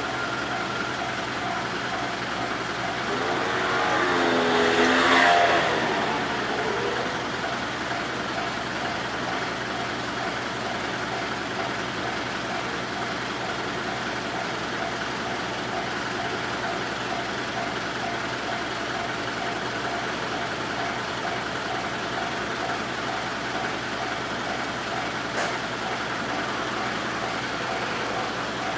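Japanese railway level-crossing warning bell ringing over and over at a steady pace. About four to six seconds in, a vehicle passes close by, falling in pitch as it goes. There is one sharp click near the end.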